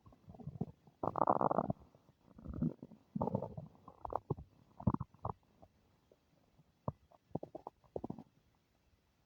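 A human stomach rumbling and gurgling in irregular bursts, loudest about a second in, then a run of short popping squeaks and gurgles.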